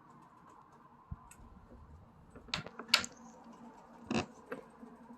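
Scattered light clicks and taps from slime-making materials being handled, with a low thud about a second in and the loudest click about four seconds in.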